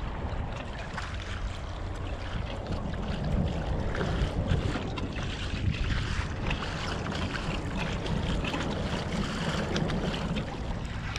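Water lapping and splashing against a kayak's hull, with wind buffeting the microphone as a steady low rumble.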